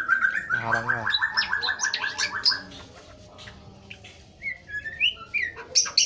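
White-rumped shama (murai batu) singing: a fast run of repeated notes, about nine a second, for the first two and a half seconds, then after a short pause a few varied whistled phrases that slide up and down.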